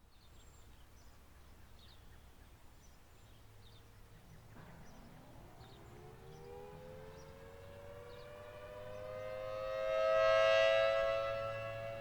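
Federal Signal Thunderbolt 1000T siren winding up, starting about four seconds in: a two-note wail rising in pitch and levelling off. It swells loudest near the end as the rotating horn turns past. It is running without its blower, which is broken.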